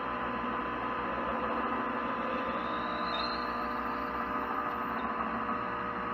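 Metal lathe running steadily, a motor hum with several steady tones, while a large center drill is fed slowly into the end of a spinning brass bar.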